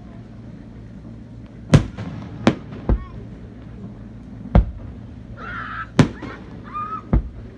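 Aerial fireworks exploding: six sharp bangs at irregular intervals, each with a short echoing tail. A brief voice is heard a little past the middle.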